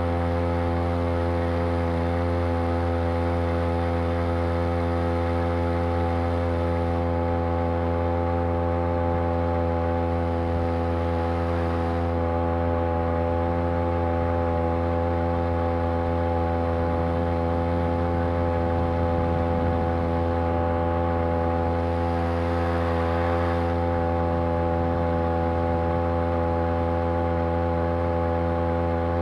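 Homemade outboard motor, a Champion T516 trimmer's two-stroke engine on a Sailor 2.0 lower unit, running at a steady, unchanging pitch.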